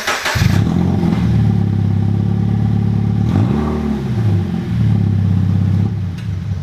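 Subaru BRZ's 2.0-litre flat-four boxer engine started with its catback exhaust removed: a brief crank, then it catches and runs loud and open. The revs rise and fall once about three and a half seconds in, and the sound fades out near the end.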